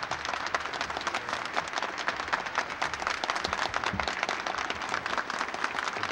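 A large audience applauding steadily, the dense clatter of many hands clapping at once.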